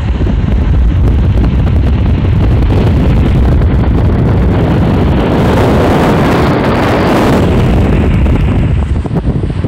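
Wind buffeting the microphone of a moving car, over road and tyre noise. The rush grows brighter and hissier for a couple of seconds past the middle.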